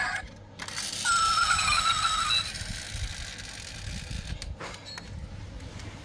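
Diecast model car's built-in electronic engine-sound effect, played through its small speaker as a short wavering synthesized rev. It starts about a second in and lasts about a second and a half. It is followed by faint clicks and rubbing as the metal model is handled.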